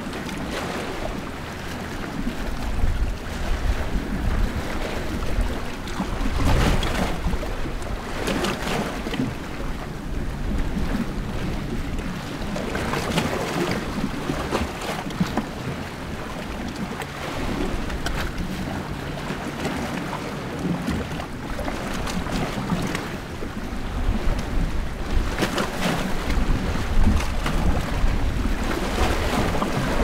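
Small sea waves washing in at the shore, picked up by a recorder just above the water, swelling in irregular surges every few seconds over a constant wash, with a low rumble underneath.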